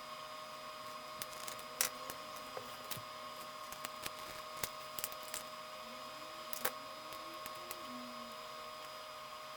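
Scattered light clicks and taps of hand tools and fingers working on an iPhone 3GS's glass and frame, the sharpest about two seconds in and again near seven seconds, over a steady hum.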